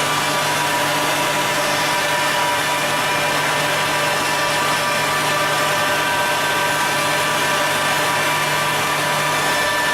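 Double-end tenoning machine running: its motors and cutter heads hum and whine steadily, several pitches at once.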